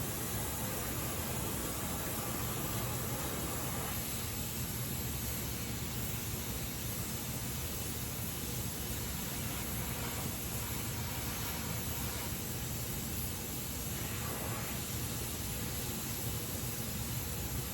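Gas welding torch flame hissing steadily during flame welding of aluminium, with slight shifts in the hiss every few seconds.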